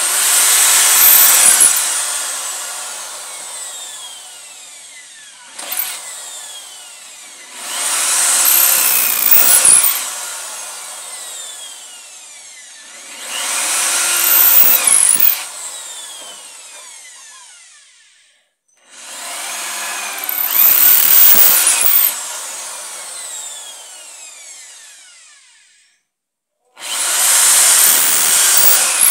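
Corded electric drill boring holes into a wooden board, five times: each time the motor runs up and the bit cuts into the wood, then the trigger is released and the motor winds down with a falling whine.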